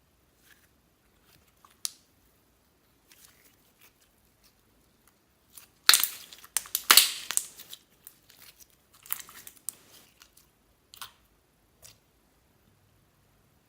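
Slime being handled and mixed by hand, making scattered crackling and crinkling sounds in short bursts. The sounds come thickest and loudest about six to eight seconds in, with a smaller cluster a couple of seconds later.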